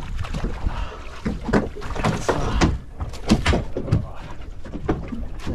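Irregular knocks and thumps on a small fishing boat, over a steady low wind rumble on the microphone.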